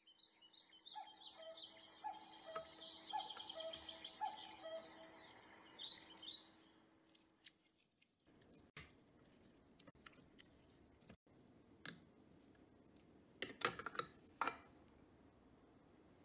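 A Cuckoo Twin Pressure electric rice cooker plays a short electronic tune of stepped tones over a faint steady hum. After that, a silicone spatula stirs and mashes the cooked red beans in the cooker's inner pot, with soft scraping and a few louder scrapes late on.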